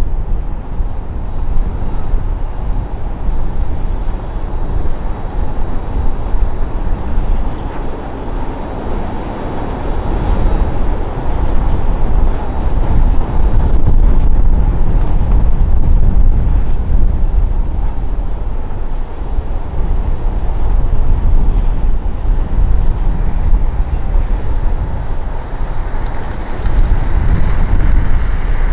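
Wind buffeting the camera microphone over a steady outdoor rumble, with no clear single source. A faint high whine rises in near the end.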